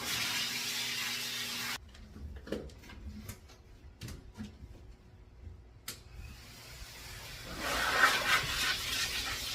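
Pet blow dryer blowing with a steady rushing noise that cuts off abruptly about two seconds in, leaving a few light clicks and knocks, then starts again around six seconds in and grows louder.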